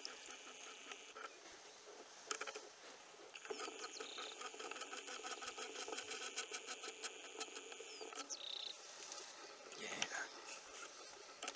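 Faint outdoor ambience with a rapid, rhythmic chirping trill from wildlife, from about three and a half seconds in to about eight seconds in, and a few soft clicks around it.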